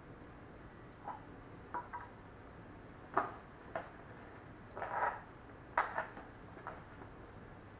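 Light clicks, taps and clinks of glass cups and small coffee-machine accessories being handled: a glass cup set down on a stone countertop, then parts lifted out of a cardboard box tray. About eight separate taps, irregularly spaced, the loudest a little past the middle.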